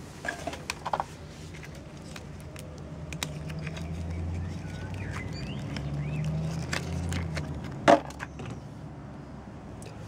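Cast-resin orgonite pieces clicking and knocking as they are handled and lifted out of a cardboard box, with a sharper knock near the end. A low hum swells in the middle and then fades, with a few faint bird chirps.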